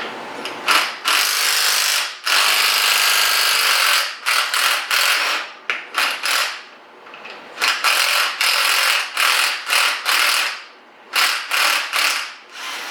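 Cordless impact wrench hammering a nut off a Nissan 350Z strut. It makes a long rattling run, then many short bursts in quick succession.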